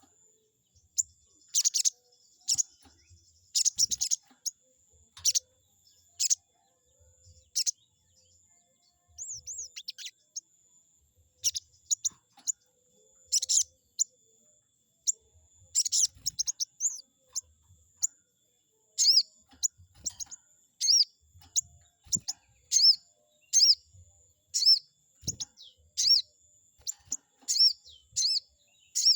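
Sogon bird calling: sharp, high chirps and short whistled notes in irregular groups. Past the halfway point they settle into a regular series of short arched notes about once a second. This is a lure call used to provoke rival sogon birds to answer.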